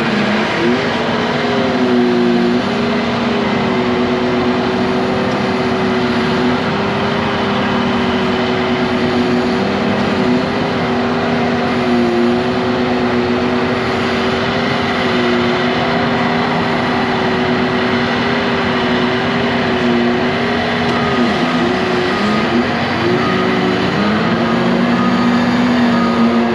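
Heavy snow-removal machine's diesel engine running steadily under load, its pitch dipping and recovering about three-quarters of the way through. Near the end a backup alarm starts beeping.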